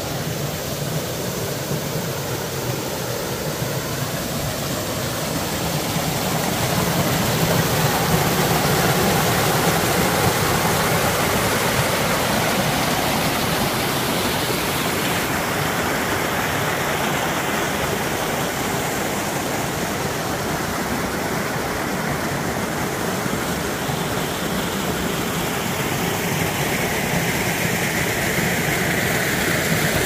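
Small waterfall in a mountain stream pouring over rocks into a pool: a steady rush and splash of water.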